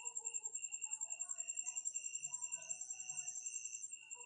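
Faint crickets chirping: a rapid high trill under slower, evenly repeated high chirps.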